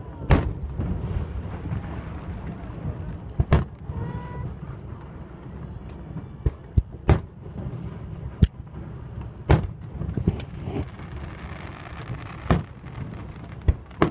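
Aerial firework shells bursting: about eight sharp bangs at irregular intervals over a steady low rumble.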